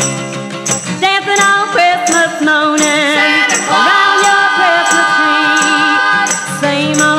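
Instrumental break in a garage-rock Christmas song: a band plays, with a jingling percussion hit on the beat about twice a second and a long held chord in the middle.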